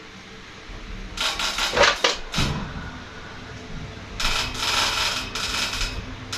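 Crumpled tissue crinkling and rustling as it is squeezed and handled, in two stretches of about one and two seconds.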